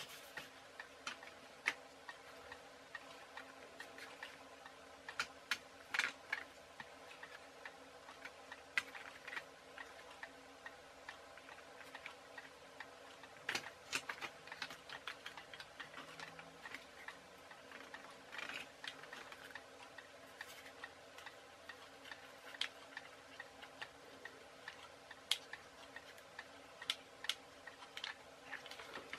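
Light, irregular clicks and taps of plastic bottle-top wheels, wooden skewer axles and card being handled and fitted together by hand, over a faint steady hum.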